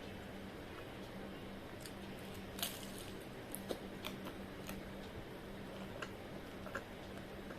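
Someone chewing fried momos close to the microphone: scattered sharp mouth clicks and crunches, the loudest about two and a half seconds in, over a steady low hum.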